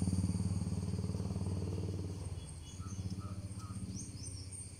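A vehicle engine running steadily, a low even hum that dips briefly about halfway through, with a few faint short high chirps about three seconds in.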